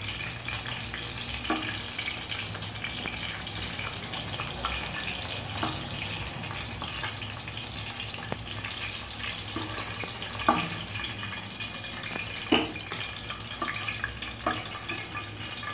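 Oil in a frying pan sizzling and crackling steadily with battered Bombay duck (loitta) fish pieces, the stove already switched off at the end of frying, as the pieces are lifted out with a metal ladle. A few sharp knocks of the ladle against the pan; the loudest come about ten and twelve and a half seconds in.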